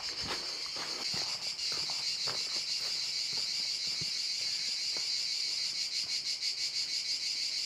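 Steady, high-pitched, rapidly pulsing chorus of cicadas singing in summer woodland. Footsteps crunch a few times on dry leaf litter, mostly in the first few seconds.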